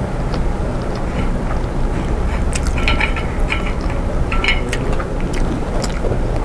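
Fingers tearing fried catfish and dipping it in sambal: small crisp clicks and crackles in the middle of the stretch, over a steady low rumble.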